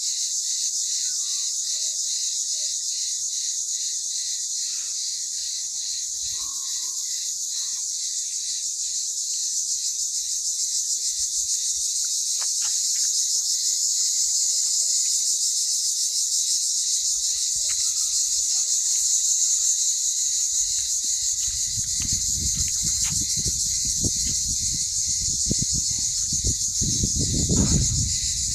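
A continuous high-pitched insect chorus, a dense fast trilling buzz, with a few faint bird chirps underneath early on. In the last several seconds low rumbling noise on the microphone joins it.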